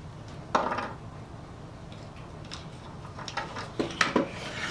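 Bar clamps knocking and clacking against a wooden workbench and each other as they are set down and picked up. There is one knock about half a second in, then several quicker clacks near the end.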